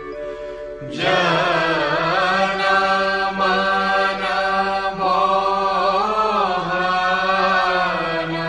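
Devotional chanting of a guru vandana hymn: a steady drone, then a voice entering about a second in and holding long, wavering notes over it.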